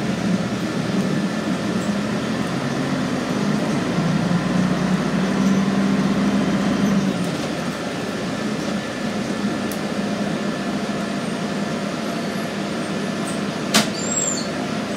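Cabin noise aboard a Scania N113CRB city bus: the six-cylinder diesel engine's drone over road and body noise, the engine note easing off about seven seconds in. A single sharp click comes near the end.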